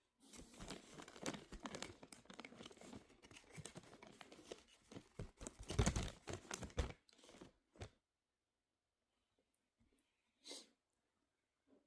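Crackly tearing and crinkling for about eight seconds, then quiet except for one short sound about ten and a half seconds in.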